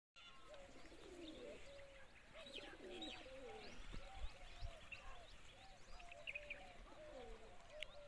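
Faint pigeons cooing over and over in short, rolling calls, with small birds chirping in higher notes over the top.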